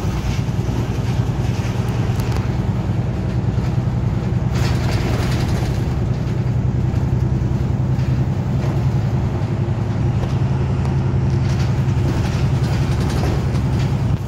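City route bus engine running with a steady low drone, heard from inside the passenger cabin as the bus drives, with a brief rush of road noise about four and a half seconds in.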